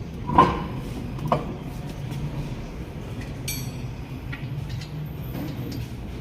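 A steady low mechanical hum, with two sharp knocks about a second apart near the start.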